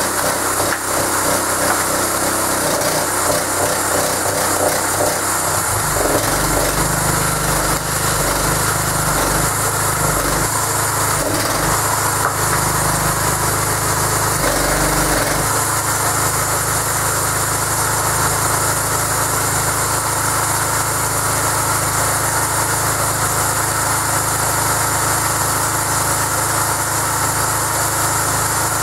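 Möller 6.5 hp 196 cc single-cylinder petrol engine running steadily, driving the hydraulic pump of a homemade log splitter. From about six seconds in until about fifteen seconds in the sound grows heavier and lower while the splitter's control is worked, then settles back to steady running.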